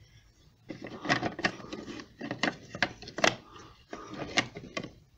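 Plastic parts of a VW Golf door mirror housing clicking and knocking as they are handled and pushed together, a run of sharp uneven clicks starting about a second in.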